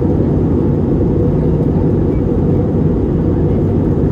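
Steady low rumble of an Airbus A321neo's Pratt & Whitney PW1100G geared turbofans and airflow, heard inside the passenger cabin in flight.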